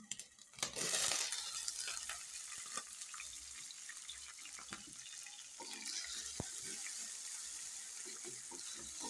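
Chopped tomatoes, onions and bell pepper sizzling in hot oil in a stainless steel pan, a steady hiss with a few taps and scrapes of a wooden spoon stirring.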